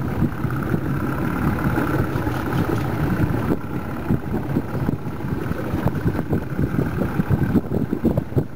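Boat engine running steadily at idle, with wind buffeting the microphone.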